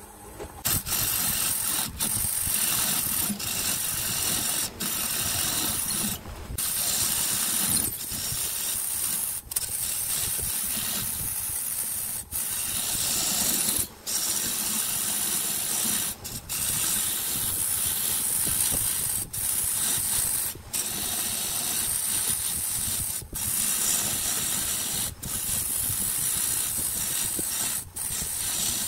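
Turning tool cutting the outside of a spinning segmented wooden vase blank on a wood lathe: a steady hiss of wood being shaved, broken by short gaps every second or two.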